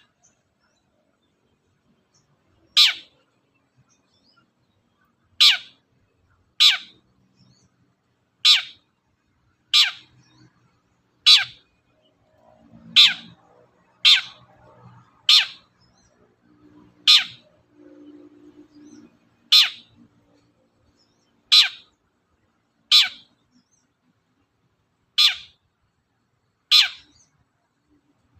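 Long-tailed shrike (cendet) giving short, harsh single calls, each a quick downward sweep, repeated about every one and a half to two seconds, some fifteen times.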